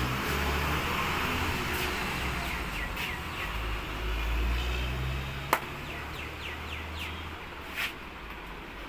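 Street ambience: a steady traffic hum with a low rumble of passing vehicles and runs of short falling bird chirps. A single sharp crack about five and a half seconds in, and a softer knock near eight seconds.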